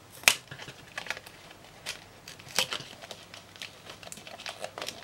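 Clear plastic blister packaging and its card backing crackling and tearing as a Pokémon booster pack's blister sleeve is peeled open by hand: scattered sharp crackles, the loudest shortly after the start.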